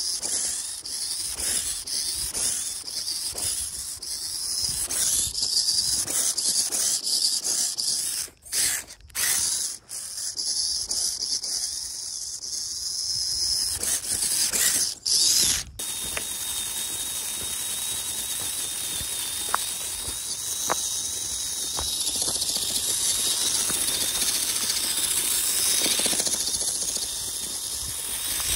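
Radio-controlled scale truck driving over rough ground: a whining electric motor and geared drivetrain with rapid clicking and a high hiss from the tyres. About halfway through, after a few abrupt breaks, a steady high whine carries on.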